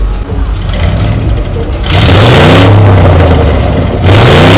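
Engine running, then revved hard twice, about two seconds apart: each rev climbs quickly and holds high for roughly half a second at full loudness before dropping back.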